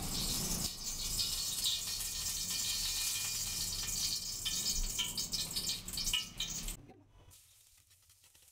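Cooking oil poured from a glass bottle into a wok, with a steady hiss and small crackles. About seven seconds in, the sound drops sharply to the quiet, faint sizzle of chopped onion starting to sauté in the oil.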